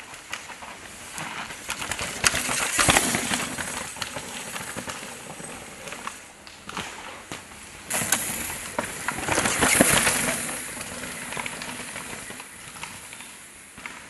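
Downhill mountain bikes riding over a rocky dirt trail: tyre noise on dirt and rock with rattling clicks. It swells twice as riders come past, loudest about ten seconds in.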